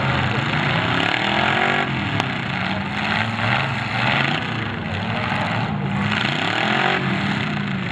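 Demolition derby car engines revving up and falling back, several at once and overlapping, over a steady loud roar as two cars stay locked together pushing.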